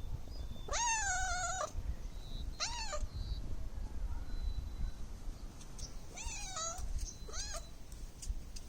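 Domestic cat meowing four times, in two pairs: a long meow with a wavering pitch followed by a short one, then a mid-length meow and another short one.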